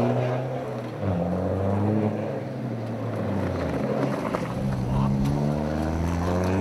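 Rally car engine revving hard under acceleration, its pitch climbing and dropping back at gear changes, with a long climb through the second half.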